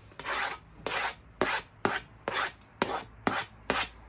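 Kitchen knife striking and scraping across a plastic cutting board in a steady series of short strokes, about two a second, as chopped chili peppers are worked on and cleared off the board.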